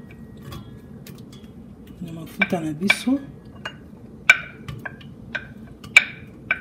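A wooden spatula tapping and scraping against a ceramic plate and the rim of a stainless steel pot as sliced onions are pushed into the pot. The sound is a series of sharp clinks, about one every half second, starting about two seconds in.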